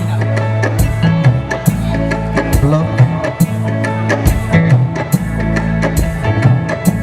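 Live dangdut band playing together at a sound check, with a bass line of held low notes under a drum kit keeping a steady beat.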